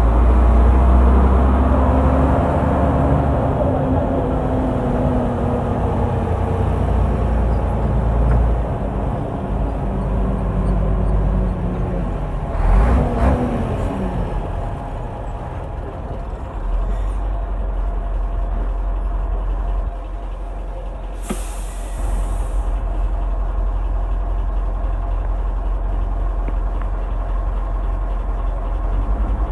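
Diesel engine of a Shacman F2000 heavy truck running under way, heard from inside the cab; its note sinks slowly, then rises and drops quickly about halfway through as a gear is changed. About two-thirds of the way in there is a short sharp hiss of compressed air from the truck's air system.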